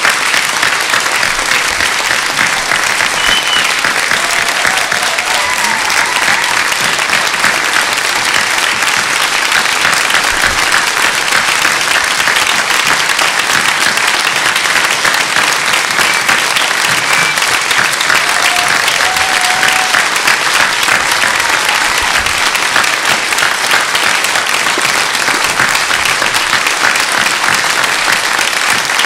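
A packed cinema audience applauding loudly and without a break: a dense, even clatter of many hands clapping.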